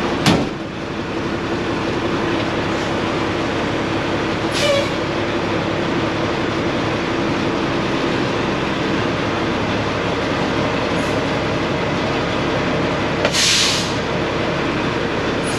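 Cummins L10 inline-six diesel engine of a 1986 International dump truck running steadily, heard from inside the cab. A sharp knock comes just at the start, and there are two short hisses, the louder about 13 seconds in.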